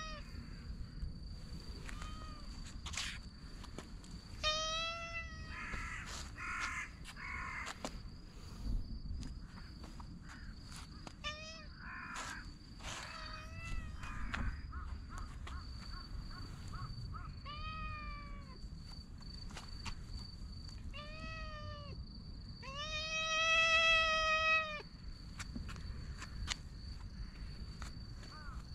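Brown tabby cat meowing several times, short calls that rise and fall in pitch, with a longer, louder meow near the end.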